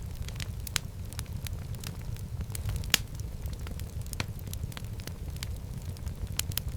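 Wood fire burning in a fireplace: a steady low rumble of flames with irregular sharp crackles and pops, the loudest pop about halfway through.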